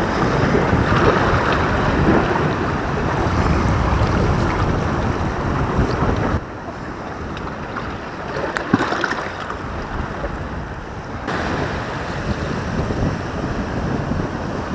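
Small sea waves washing over the rocks at the water's edge, mixed with wind buffeting the microphone; the wash is quieter for a few seconds in the middle.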